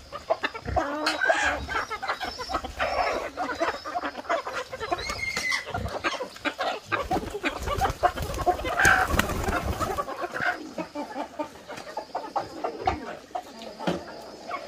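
A flock of free-range chickens clucking over scattered grain, many short overlapping calls.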